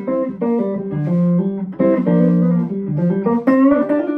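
Eastman Romeo SC hollow-body electric guitar played clean and dry through an amp, picking a run of single notes and chords that change several times a second.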